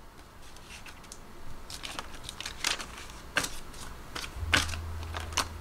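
Paper banknotes being handled and counted out one by one, a series of separate crisp rustles and snaps.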